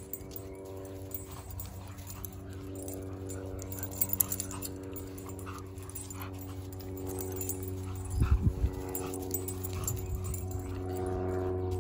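Siberian husky and yellow Labrador Retriever puppy playing tug of war with a rope toy, making dog noises as they pull, with scattered scuffs and clicks and a burst of low thumps about eight seconds in. A steady hum runs underneath.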